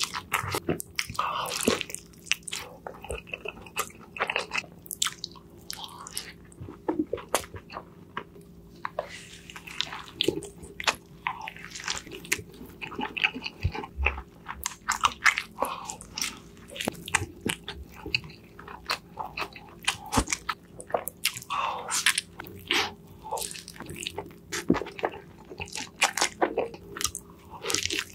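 A person biting into and chewing a burger close to an ASMR microphone: a dense run of short crackling bites and chews, over a faint steady hum.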